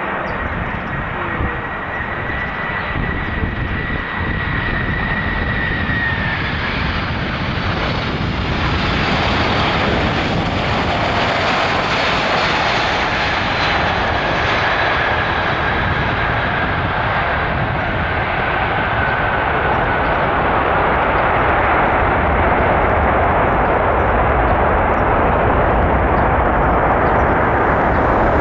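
Boeing 747-400ER's four turbofan engines landing: a steady jet roar with a high whine that slides down in pitch. The roar swells after touchdown, in the way of engines spooling up in reverse thrust for the rollout.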